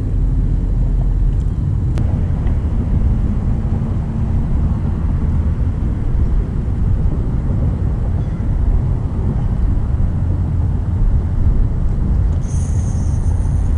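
Steady low rumble of outdoor background noise. Near the end a faint, thin, high two-note whine comes in and holds.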